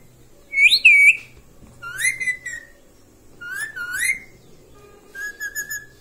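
Pet green parakeet giving whistled calls: three or four separate calls that glide up and down in pitch, about a second apart, then a quick run of short chirping notes near the end.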